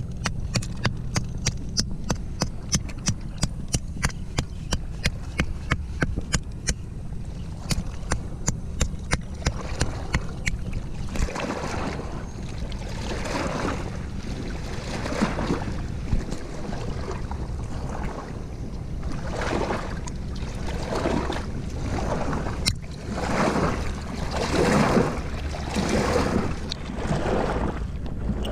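Water sloshing and lapping against oyster-covered rocks at the shoreline, in swells that come and go every second or two, over wind rumbling on the microphone. For the first ten seconds or so there is a fast regular ticking, about three clicks a second.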